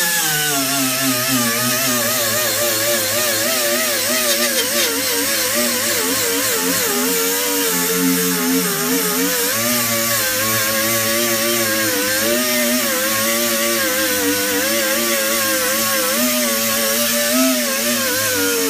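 Ingersoll Rand air die grinder spinning a small 3M Roloc abrasive disc against sheet steel, stripping paint and rust: a steady whine over a hiss, its pitch wavering as the disc is pressed to and eased off the metal.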